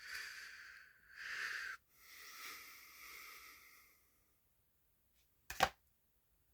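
Two long breaths close to the microphone, soft and airy, followed a moment later by a single sharp click.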